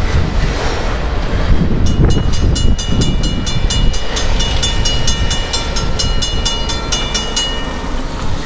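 Railroad grade-crossing bell ringing rapidly, about four to five strokes a second, as the crossing gates rise after the train has cleared. It starts about two seconds in and stops shortly before the end, over a steady low rumble.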